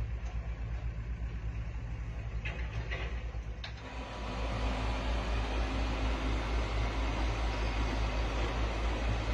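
Hitachi excavator's diesel engine running steadily, with a few short knocks around three seconds in. About four seconds in the sound jumps to a louder, steadier engine drone.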